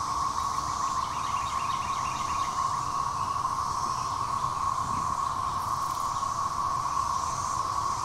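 Chorus of Brood XIX 13-year periodical cicadas (Magicicada), a steady, unbroken drone pitched near 1,100 Hz from a mass of calling males. A brief run of faint, quick, higher chirps sits over it about one to three seconds in.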